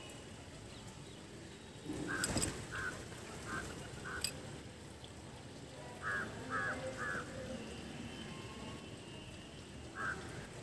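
Short bird calls repeated in runs of three or four, about half a second apart. A brief loud noise comes about two seconds in, and a sharp click just after four seconds.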